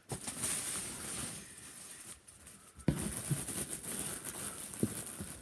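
Cardboard box flaps and paper rustling and scraping as a box is opened by hand, with many small clicks and crackles; the handling grows louder and busier from about three seconds in, starting with a sharp knock.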